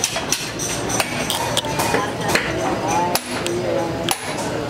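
Irregular sharp metal taps and clinks of a hand tool working the gear and shaft of a small motor armature, over voices and music.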